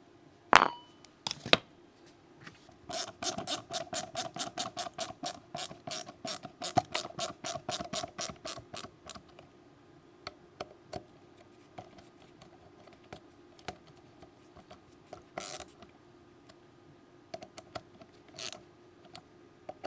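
Wera 416RA ratcheting T-handle's fine-tooth pawl clicking rapidly and evenly for several seconds as the handle is ratcheted, then slowing to scattered single clicks. A few sharp knocks come near the start.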